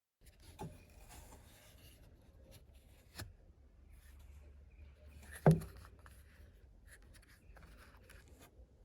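Quiet handling sounds: soft rubbing and scraping with a few light clicks, the loudest a sharp knock about five and a half seconds in.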